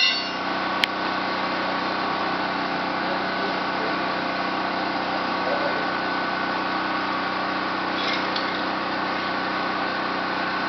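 Small engine running steadily at one constant speed, with a single sharp click about a second in.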